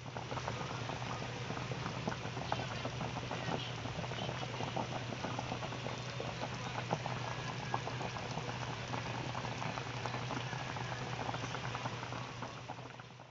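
Pot of chicken soup boiling, a steady bubbling with many small pops, over a low steady hum.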